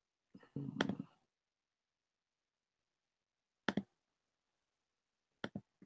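Mostly quiet, broken by a few short, sharp clicks: one inside a brief rustle about a second in, one near the middle, and two in quick succession near the end.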